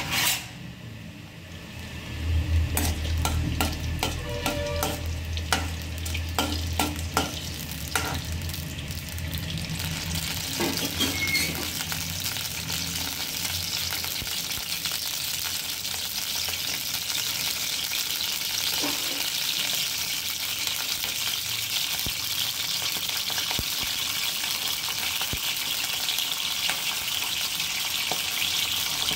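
Urad dal frying in hot oil in a metal kadai: oil sizzling. The sizzle settles into a steady hiss that builds after the first several seconds, with scattered sharp clicks and pops early on.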